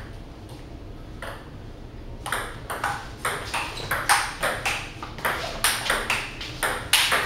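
Table tennis rally: the ball clicking off paddles and the table top. A single click about a second in, then a quick, even exchange from about two seconds in at roughly three clicks a second, ending just before the close.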